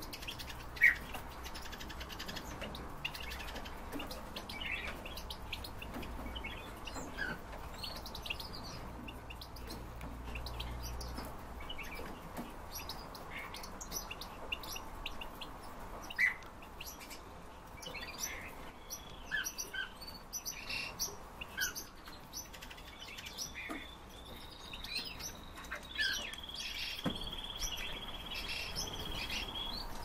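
Caged finches, among them European goldfinches, chirping and twittering with short scattered calls, and in the last third a high trill held for a few seconds, twice.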